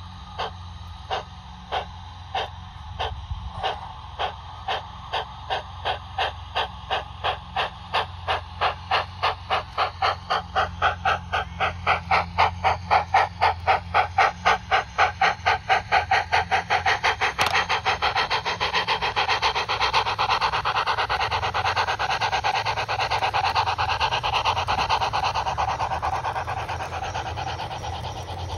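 O gauge model Western Region steam locomotive pulling away with its train: slow, evenly spaced exhaust chuffs quicken steadily until they run together into a continuous rush, then fade near the end.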